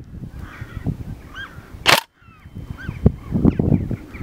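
A single shot from a stock Tokyo Marui Scar L airsoft electric gun firing through a chronograph about two seconds in: one short, sharp crack. Birds call in between shots over a low rumble.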